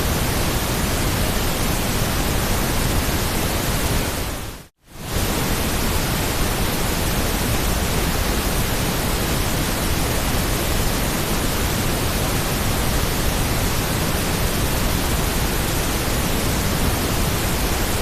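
Steady white noise: an even hiss spread across the whole range from deep to high, with no tones or rhythm. Near five seconds in it fades out to silence and comes back within about a second.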